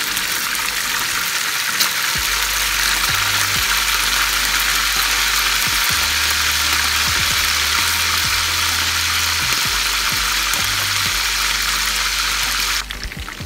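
Raw chicken pieces frying in hot oil in a frying pan: a steady, loud sizzle of bubbling oil. It drops away abruptly near the end.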